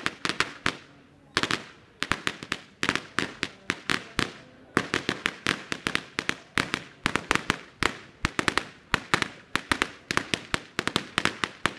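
A string of firecrackers exploding on the ground in rapid, irregular runs of sharp bangs, with short lulls about a second in and again about four seconds in.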